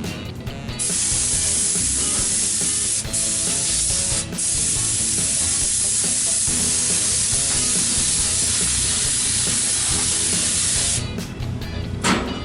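Paint spray gun spraying: one long, steady hiss of air and paint that starts just under a second in, is cut for an instant twice around the third and fourth seconds, and stops about a second before the end.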